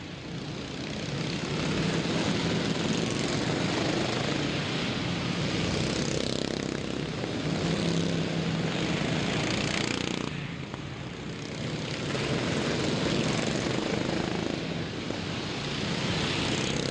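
A pack of stock riding lawn mowers racing, their small engines droning together. The sound swells and fades as the mowers pass, with a brief dip about ten seconds in.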